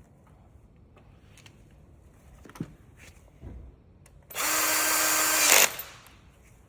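Cordless drill-driver running steadily for about a second and a half, driving in a screw, about four seconds in. Before it come a few light clicks and knocks of handling parts.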